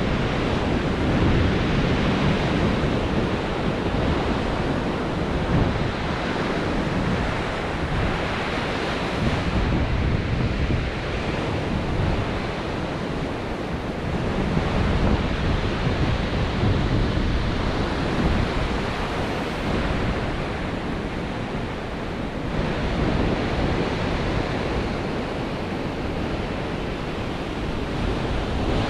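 Ocean surf breaking and washing up the beach in swells, with wind buffeting the microphone.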